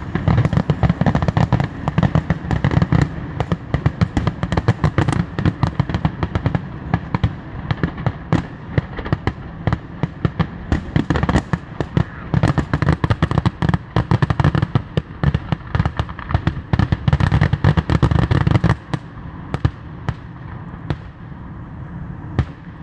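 Fireworks going off in a rapid, continuous barrage of bangs and crackles over a heavy low rumble. The rumble drops away about nineteen seconds in, leaving scattered pops.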